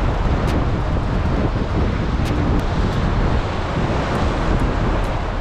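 Wind buffeting the microphone over the steady wash of ocean surf breaking against the rocks of a jetty.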